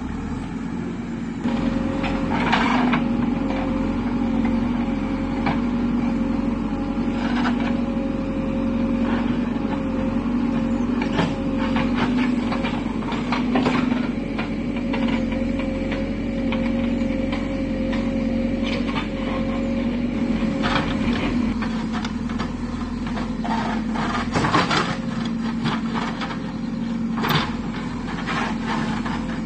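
JCB backhoe loader's diesel engine running steadily under work, with a steady whine for most of the first two-thirds. Irregular clanks and scrapes come from the backhoe bucket digging and dragging soil and brush, thickest in the second half.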